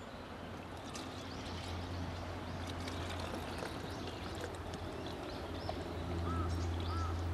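Water poured from a plastic pitcher into a plastic filter bottle, a faint hiss with light splashes, over a steady low hum. Near the end a bird calls with a short chirp, repeated about every half second.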